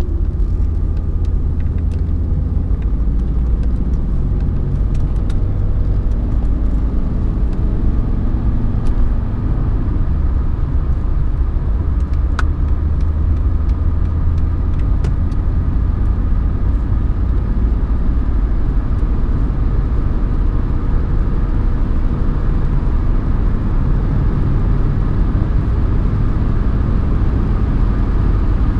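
Mercedes-Benz 190D 2.5 Turbo's OM602 five-cylinder turbodiesel running while the car drives, heard from inside the cabin as a steady low drone mixed with road noise.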